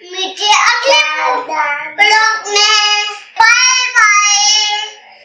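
A young child's high voice singing in three phrases of held, sliding notes.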